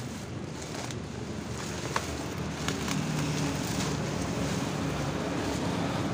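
Bubble wrap rustling and crinkling as a wrapped package is handled, with a sharp click about two seconds in. A steady low hum runs underneath.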